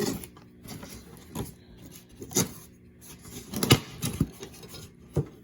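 Packaging being handled: rustling with about five light knocks and taps, the sharpest about two-thirds in, as carbon-fibre rods are slid partly out of their foam packing.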